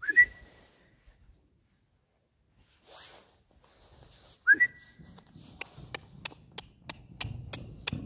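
A person whistles twice to call a horse, each whistle a short note sliding up and then held briefly. The first comes right at the start and the second about four and a half seconds in. From about five and a half seconds, sharp clicks follow at about three a second over low thudding as the Friesian horse trots back across the arena sand.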